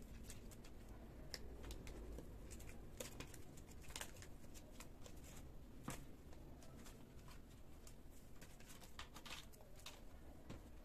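Faint, irregular clicks and scratches of kittens' paws and claws scrabbling on a tile floor as they play-fight.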